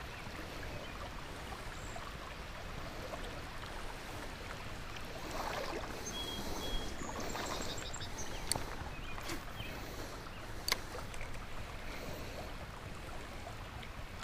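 Steady hiss of a shallow river's flowing water, with two short sharp clicks, one about eight and a half seconds in and one near eleven seconds.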